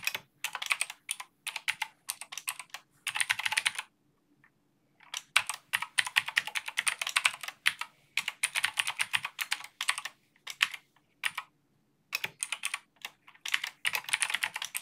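Typing on a computer keyboard: quick bursts of keystrokes separated by short pauses, the longest pause about four seconds in.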